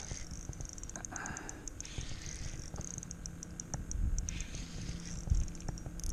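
Spinning reel ticking in quick runs of sharp clicks while a hooked redfish is fought on the rod, over a low rumble.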